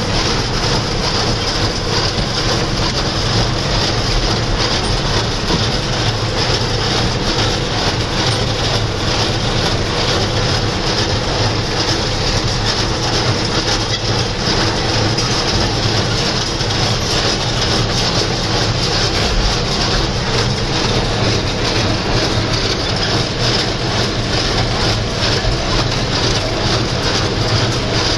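John Deere 2140 tractor engine running steadily under load while pulling a New Holland 268 square baler, the engine and the baler's working machinery making one continuous mechanical noise.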